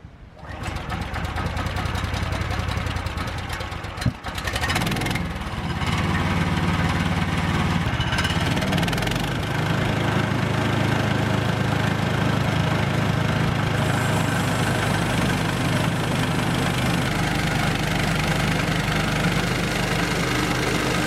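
Small gasoline engine on a bandsaw sawmill running. There is a sharp click about four seconds in, and then it settles into a steadier, louder run about five to six seconds in.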